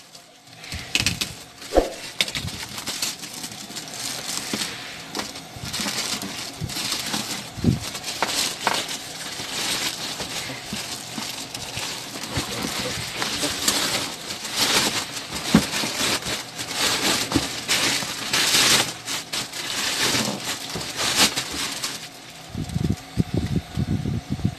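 Clear plastic bag crinkling and rustling as it is pulled and slid off a cardboard box, full of small crackles. Near the end the crinkling stops and lower, duller handling sounds of the box follow.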